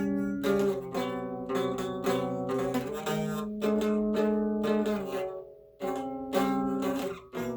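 Music: a plucked string instrument playing ringing notes and chords with no singing. It breaks off for a moment about five and a half seconds in, then carries on.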